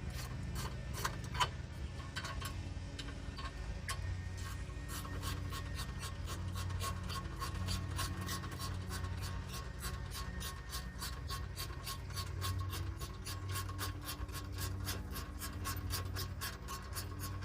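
Hand ratchet working a stubborn bolt on the car body, clicking steadily at about four clicks a second, irregular at first. A low hum runs underneath.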